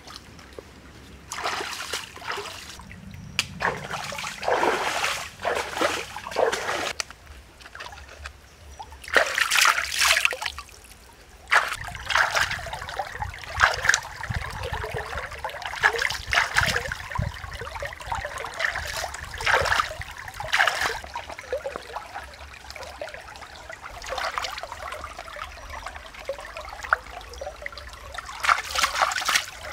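Hands splashing and swishing shrimp through shallow stream water, trickling and splashing in irregular bursts, some louder than the rest.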